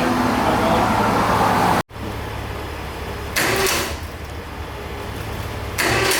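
Steady road noise inside a moving vehicle, which cuts off abruptly about two seconds in. After it comes a quieter background with two short, brief sounds, the first near the middle and the second near the end.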